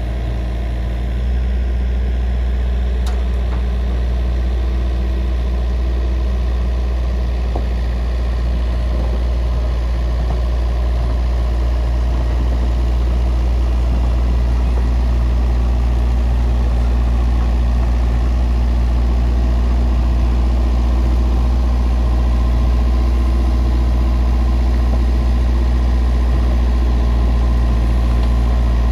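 Mini excavator's diesel engine running steadily with a deep hum while the arm works, getting a little louder about a second in.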